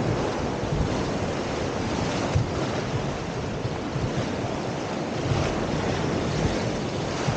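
Whitewater rapids rushing steadily around an inflatable raft, with wind buffeting the microphone in low rumbling gusts.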